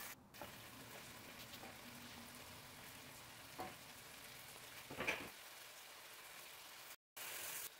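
Faint sizzling of prawn curry cooking in a pan, with soft knocks about four to five seconds in as chopped tomatoes are tipped in from a wooden cutting board. The sound cuts out briefly near the end.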